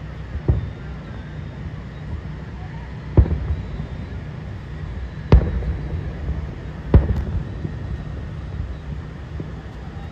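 Aerial fireworks shells bursting at a distance: four sharp booms, about half a second, three, five and seven seconds in, each followed by a rolling echo, over a steady low background rumble.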